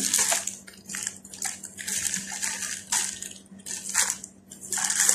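Clear plastic packaging bags crinkling and rustling in irregular bursts as they are handled and opened.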